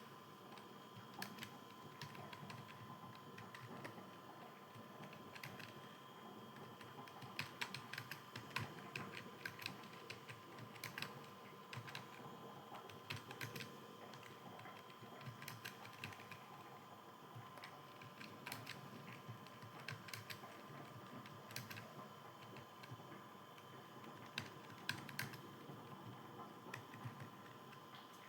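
Computer keyboard being typed on steadily, a continuous run of quiet key clicks with quicker spells now and then, over a faint steady electrical hum.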